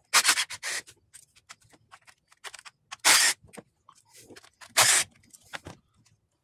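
Rubber hoses and plastic wiring being handled and pushed aside by gloved hands in an engine bay: scattered clicks with three louder scrapes, near the start, about three seconds in and about five seconds in.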